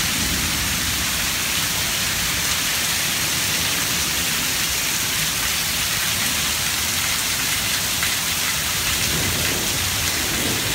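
Steady rain falling, an even hiss, with a low rumble of thunder building near the end.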